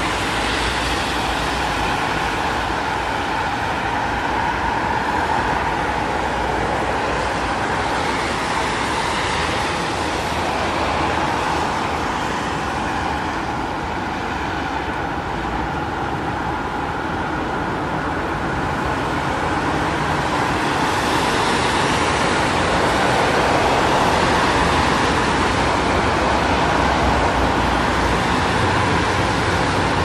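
Steady city road traffic: a continuous wash of car engines and tyres. It eases a little around the middle and swells louder in the last third, with a deeper rumble from a heavier vehicle coming up near the end.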